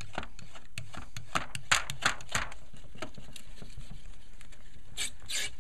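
Razor-blade scraper pushed in quick, short strokes across wet car window glass, scraping off tint adhesive softened by a remover chemical. Two longer scrapes come near the end.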